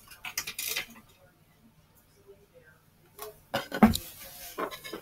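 Clicks and clatter of small plastic product containers being handled on a tabletop: a few light clicks at the start, then a louder cluster of knocks with a dull thud about three and a half seconds in, and more clicks near the end.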